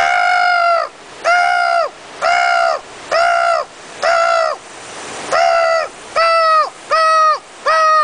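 A man's voice imitating a crow cawing: a string of about nine loud, evenly spaced 'kaa' calls, each about half a second long and slightly arched in pitch. The first call runs longest, and there is a slightly longer pause around the middle.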